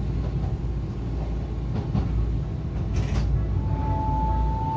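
Tokyu Setagaya Line 300-series tram running, a steady low rumble of wheels and traction motors. A brief hiss comes about three seconds in, and near the end a motor whine sets in and slowly rises in pitch as the car picks up speed.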